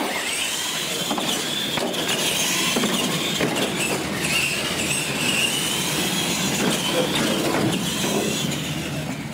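Radio-controlled monster trucks racing across a concrete floor: a high, slightly wavering whine from the motors and gears over a steady rattling hiss of tyres and drivetrain, starting suddenly as they launch.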